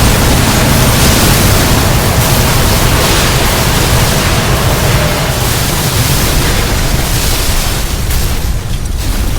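Earthquake sound effect: a very loud, dense wash of low rumble and crashing noise spread across all pitches, with no distinct single hits, easing slightly near the end.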